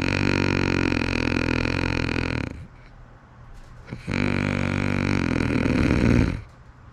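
A person snoring: two long snores of about two and a half seconds each, with a pause between them.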